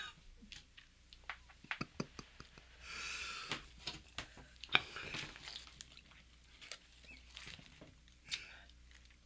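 A woman breathing sharply in and out through her mouth against the burn of a freshly eaten habanero pepper, with a couple of longer hissing breaths. Small clicks and mouth sounds come in between.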